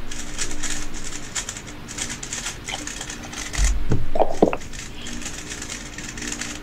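Rapid clicking and rattling of a speed cube being turned, as when a 3x3 is scrambled, broken about four seconds in by a heavier knock as a cube cover is set down over a cube.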